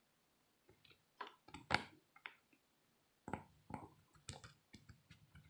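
Irregular small clicks and scratches of a pick scraping dirt out of an iPhone charging port. The loudest click comes a little under two seconds in.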